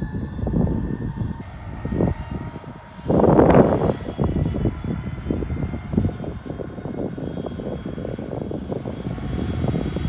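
Freightliner Class 66 diesel locomotive's two-stroke engine droning steadily as it hauls a long engineering train of wagons past, with uneven rumbling and a louder rush about three seconds in.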